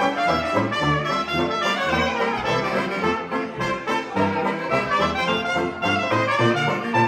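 A 1920s-style hot jazz band playing, with trumpet and saxophone on top and a tuba bass line pulsing about twice a second underneath.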